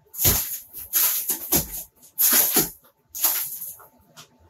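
Old plaster and lath ceiling debris being knocked loose and crashing down onto the floor, in about five rattling bursts of falling rubble.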